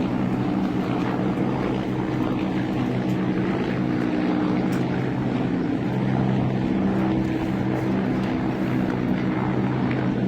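Helicopter flying, a steady drone of several held low pitches that stays at an even loudness throughout.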